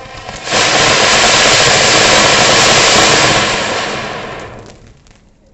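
Anar (flowerpot firework) fountain spraying sparks with a loud rushing hiss and crackle. It surges suddenly to full force about half a second in, holds for about three seconds, then dies away.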